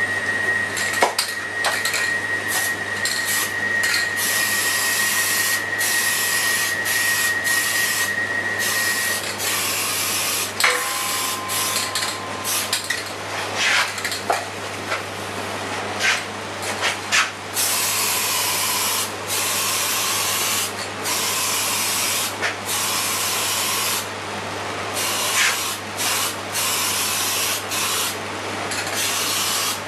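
Black spray paint hissing out in repeated bursts that start and stop, over a steady low hum. A thin steady whistle sounds for the first nine seconds or so.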